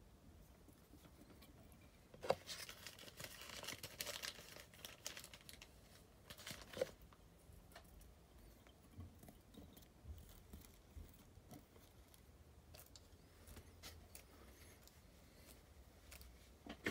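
Faint handling sounds of fly tying at the vise: a sharp click, then a few seconds of crinkly rustling as thread and materials are worked on the hook, and another click a few seconds later.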